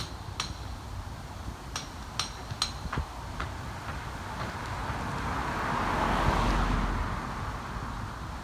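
A car passing along the street, its noise swelling to a peak about six seconds in and then fading. Light clicks of walking footsteps on pavement come in the first three seconds.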